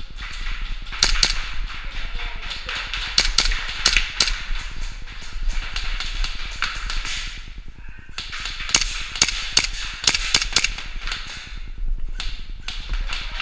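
Airsoft guns firing: many sharp, irregular snaps of shots and BB hits, in two long flurries with a short lull about eight seconds in.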